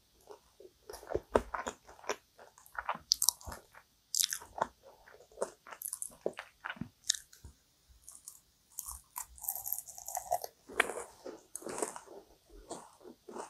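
Close-miked chewing and biting of a crisp, flaky kouign-amann pastry: a dense run of short crackling crunches with mouth sounds.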